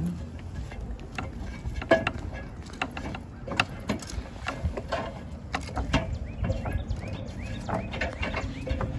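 Irregular knocks, clicks and clatter of a roofer's fall-protection hardware and aluminium extension ladder, with boots shifting on slate, as he works his way down a steep slate roof on a rope.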